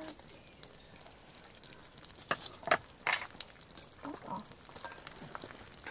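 Cast-iron pan on campfire coals sizzling faintly, with a few short clicks and scrapes from a fork in the pan, most of them about two to three seconds in.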